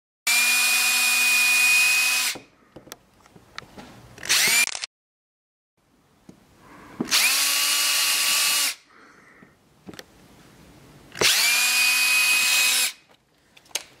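Cordless drill running in three steady bursts of about two seconds each, with a short burst between the first two, as screws are driven to mount a quick-connect charging port on an ATV's plastic body panel.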